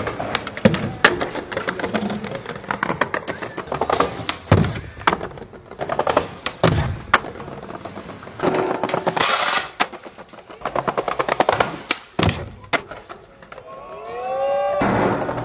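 Skateboard wheels rolling over stone paving tiles, clicking at the joints, with three heavier thuds of the board hitting the ground.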